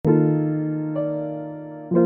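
Background music: electric piano chords struck about once a second, each ringing and fading before the next.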